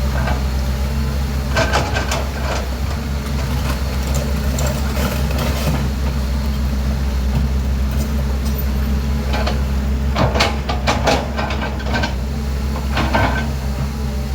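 Excavator diesel engine running steadily, with clusters of sharp metallic clanks and scrapes several times as the machine works mud off a rock roller.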